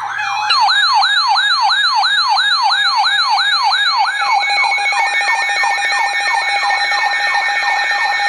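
Electronic siren in a fast yelp, its pitch sweeping up and down about three times a second. About four seconds in, a second, faster yelp joins it.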